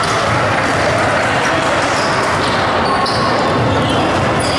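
Basketball being dribbled on a hardwood gym court, with voices of players and spectators in the hall.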